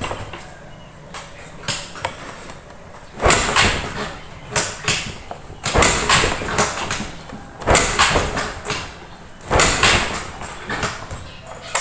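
Rustling of a shiny nylon hooded jacket rubbing close against the microphone, coming in repeated bursts about every one to two seconds.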